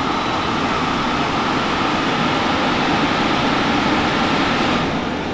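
Portable air conditioner running with a steady fan and compressor noise as it is switched off. Near the end the higher hiss drops away as the unit winds down.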